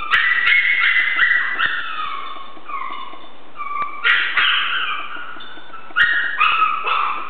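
Eight-week-old Chihuahua puppies yipping and whining in play, short high-pitched calls with falling pitches. A quick run of yips at the start, more around four seconds in, and another run near six seconds.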